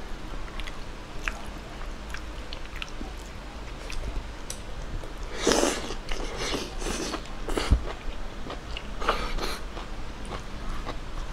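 A person eating close to the microphone: chewing and biting with small wet mouth clicks, and louder clusters of bites about halfway through and again a couple of seconds later.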